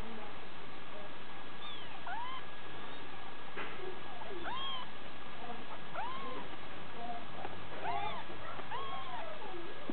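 Somali kittens mewing: about eight short, high mews, each rising and then falling in pitch, coming roughly once a second from about two seconds in.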